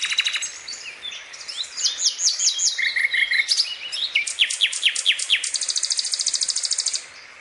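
Birds calling and chirping: quick repeated falling whistles and short trills, then a long, even, rapid high trill that stops about seven seconds in.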